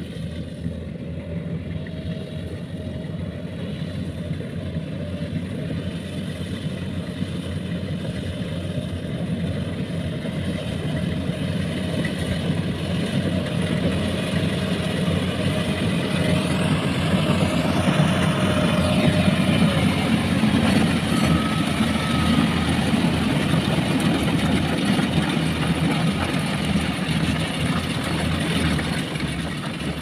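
Combine harvester running steadily while cutting rice, its engine and machinery a dense drone that grows louder until about halfway through, then holds level.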